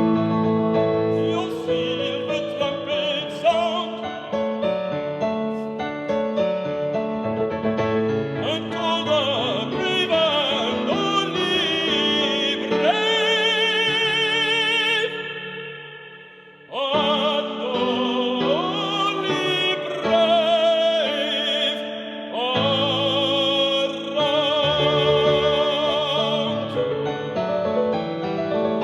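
A tenor singing a Baroque aria with strong vibrato over piano accompaniment. The music drops away briefly just past halfway, then voice and piano come back in together.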